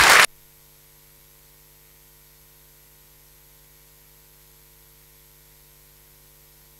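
Applause cuts off abruptly a fraction of a second in, leaving a faint, steady electrical hum made of several level tones from the sound system.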